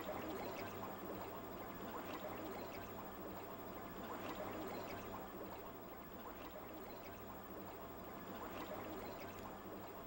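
Faint, steady trickling of water in an aquarium tank.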